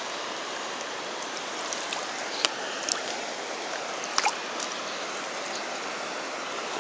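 A river in flood rushing steadily past, its water running through a landing net held in the current. A few brief clicks or splashes sound between about two and four seconds in, as the net and a small trout in it are handled.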